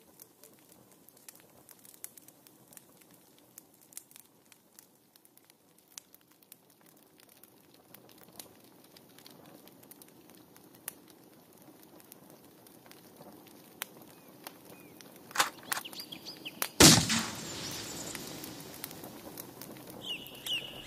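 Paint thrown against a canvas: faint scattered clicks, then a couple of sharp cracks and one loud splat about seventeen seconds in, followed by a rushing hiss that fades over a few seconds. High chirping starts near the end.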